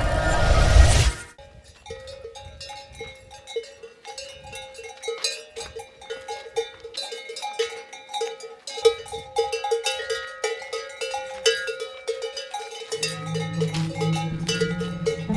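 A loud whoosh closes a logo sting in the first second. Then camel bells clank in an uneven, walking rhythm, and a low musical drone joins in near the end.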